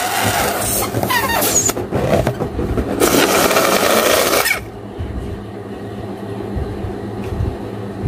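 Hands rubbing and stretching an inflated latex balloon while tying its neck in a knot: a dense rubbery scraping with a few short squeaks, which stops abruptly about four and a half seconds in.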